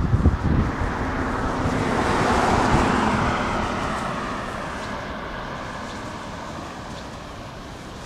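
A car passing close by: its tyre and engine noise swells to a peak about three seconds in, then fades slowly as it drives away. Wind buffets the microphone at the start.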